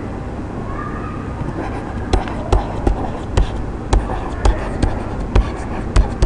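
Stylus tapping and scratching on a tablet's writing surface as a word is handwritten: short sharp taps, about two a second, starting about two seconds in, over a steady low hum.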